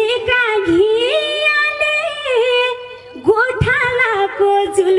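A woman singing a song into a handheld microphone, holding long notes that slide up and down between pitches, amplified through a PA.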